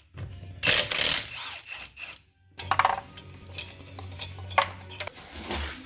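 Milwaukee cordless impact wrench hammering on a lug nut in short bursts, one about half a second in and a shorter one near the three-second mark. Metallic clicks and clinks follow as the loosened lug nuts are handled.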